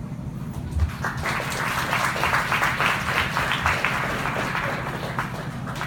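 An audience applauding. The clapping starts about a second in, is fullest in the middle and dies away near the end, over a steady low room hum.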